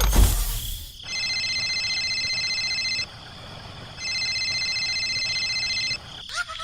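A short whoosh, then an electronic telephone ringing with a fast trill: two rings of about two seconds each, a second apart.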